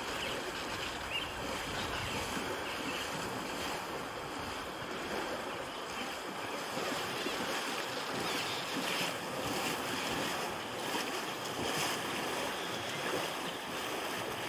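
A horse wading through a shallow river, its legs splashing and churning the water in a steady rush of noise, with a few louder splashes along the way.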